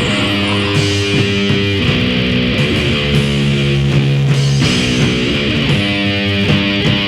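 Death grind / noise grind music: a heavily distorted electric guitar riff of held chords joined by pitch slides, over a dense, harsh wash of noise.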